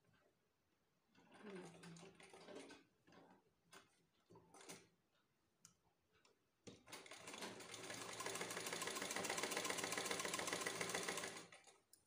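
Domestic sewing machine stitching a trouser hem: a few short bursts of stitching in the first five seconds, then a steady, even run of stitches for about five seconds that stops shortly before the end.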